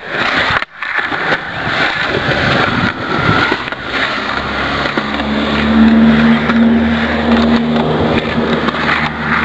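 A steady rushing noise, joined about four and a half seconds in by the steady low hum of an engine running.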